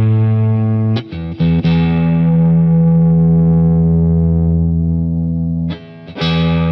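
Electric guitar played through a Boss Katana-100 amplifier: low notes struck and left to ring, struck again about a second in and once more near the end after a short drop. The amp's bass control is being turned as it plays, giving only a modest change in the low end.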